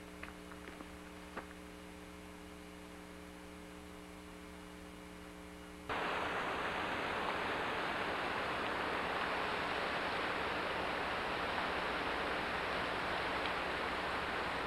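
A low steady electrical hum with a few faint clicks, then about six seconds in a sudden cut to loud, steady rushing water pouring over a dam spillway into rocky rapids.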